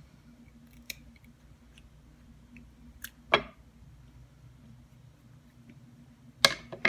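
Kitchen scissors snipping the fins off a small raw fish: a few sharp, separate snips, the loudest about three seconds in, over a faint steady hum. Near the end come two more sharp clicks as metal tools are handled on the wooden cutting board.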